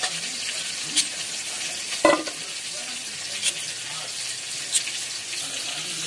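Hilsa fish frying in hot oil in a kadai, a steady sizzle. Over it come a few sharp clicks about a second apart, the strongest about two seconds in, as taro stalks are cut on a boti blade and the pieces drop into a steel bowl.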